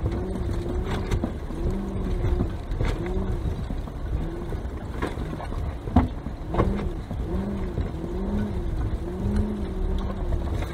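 Dodge Durango SRT's V8 engine running at low speed, its pitch rising and falling over and over as the vehicle crawls over rough ground. Several sharp knocks from the body and suspension jolting over the trail are scattered through it.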